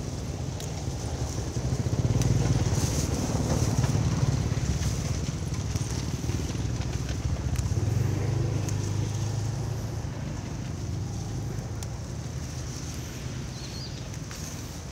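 A motor vehicle's engine rumbling past, swelling about two seconds in and fading over the next ten seconds, over scattered snaps and rustles of leafy stems being picked by hand and pushed into a plastic bag.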